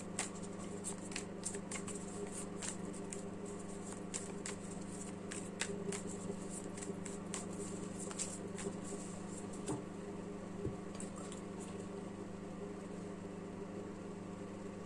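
A deck of tarot cards being shuffled and handled: quick crisp card clicks and flicks, thinning out after about ten seconds, over a steady low electrical hum.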